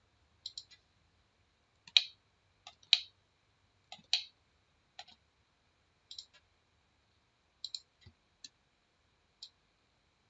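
Computer mouse button clicking, about fifteen short, sharp clicks, some single and some in quick pairs, as edges are picked one at a time; the loudest fall between about two and four and a half seconds in.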